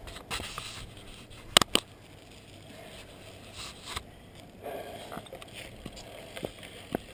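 Two sharp clicks close to a helmet-mounted camera's microphone about a second and a half in, over faint rustling and scraping.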